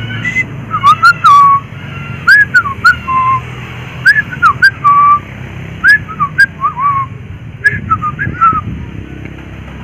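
A person whistling a casual tune of short notes, many of them rising or falling. Light clicks fall between the notes.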